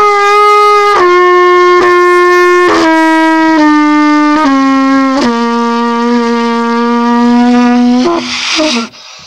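Trumpet played close up: a slow line of held notes stepping down in pitch, ending on one long low note of about three seconds. Near the end the tone breaks up into airy, uneven noise.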